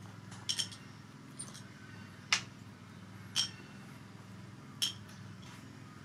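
A handful of short, sharp clicks and clinks spread over a few seconds, from small hard food items and a china plate being handled by hand, over a low steady hum.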